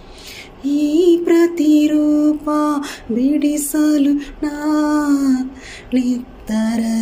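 A woman singing unaccompanied, a slow melody of long held notes with short breaths between the phrases.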